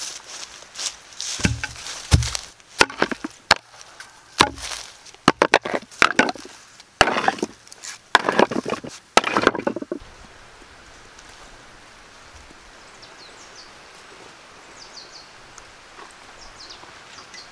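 Flat stone slabs knocking and clattering against each other as they are handled and set down on a pile: a run of sharp knocks, scrapes and a few heavier thuds that stops about ten seconds in.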